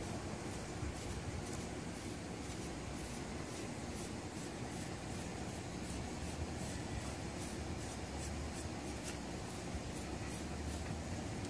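Stainless-steel deshedding tool scraping through a dog's short coat in quick, repeated scratchy strokes, a few a second, over a steady low background noise.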